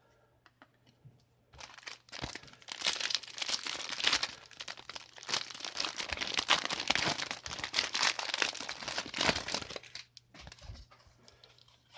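A trading card booster pack's wrapper being torn open and crinkled by hand: a dense run of crackling and rustling that starts about a second and a half in and dies away about ten seconds in.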